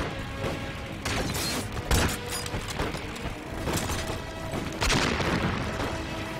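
Film battle soundtrack: a dramatic orchestral score with the booms of explosions and bursts of gunfire laid over it. The heaviest boom comes about two seconds in and another large blast near five seconds.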